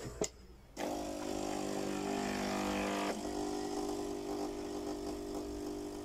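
Philips Series 5000 espresso machine: a click, then its pump starts about a second in and runs with a steady hum. It is pushing clean rinse water through the machine after the descaling cycle.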